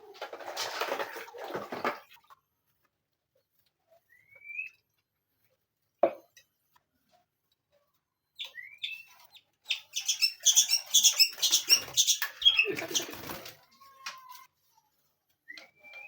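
Caged songbirds giving a few short rising chirps and one lower whistle, among bursts of fluttering and rustling in the first two seconds and again from about ten to thirteen seconds in.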